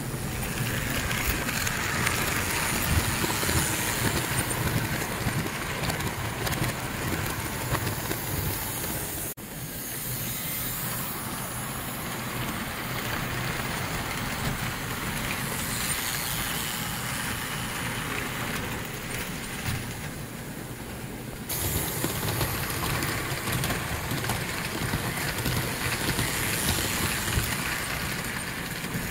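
American Flyer S-gauge toy trains running on tinplate track: a steady rumble and rattle of wheels and motor. The sound changes abruptly twice, about a third and about two-thirds of the way through.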